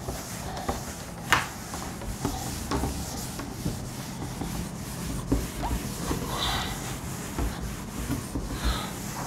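Cloth duster rubbing across a chalkboard in sweeping wiping strokes, with scattered light knocks against the board, one sharper knock about a second in.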